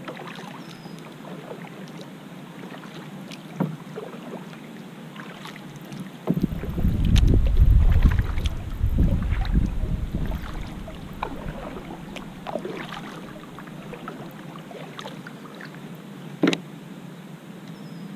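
Kayak being paddled across calm water: the paddle blade splashes and drips with each stroke, with two sharp knocks, one a few seconds in and one near the end. Wind buffets the microphone for several seconds in the middle.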